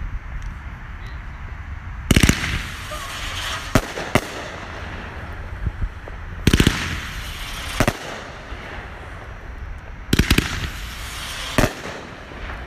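Consumer aerial fireworks going off. There are three loud bangs about four seconds apart, each followed by a spell of crackling stars, with sharper single reports in between.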